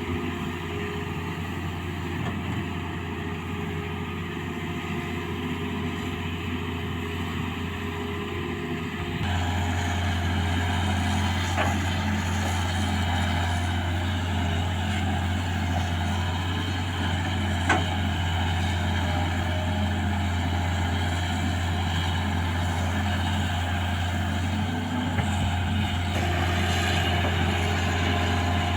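Hitachi Zaxis 210F excavator's diesel engine running steadily; it gets louder about nine seconds in, and two short sharp knocks come later.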